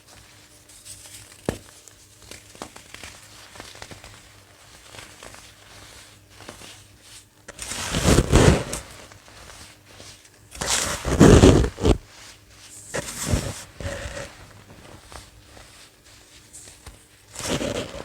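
Dried clumps of baking soda being crushed: faint crackling at first, then four loud crunches about halfway in and toward the end.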